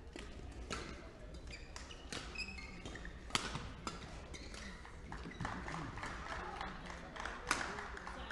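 Badminton rally: a racket striking the shuttlecock again and again in sharp cracks, the loudest about a third of the way in, when an overhead smash is played, and again near the end. Shoes squeak on the court between the shots, and the strikes ring in the hall.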